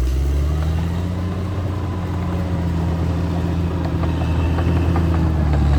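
Caterpillar D6R XL bulldozer's diesel engine running at a steady speed.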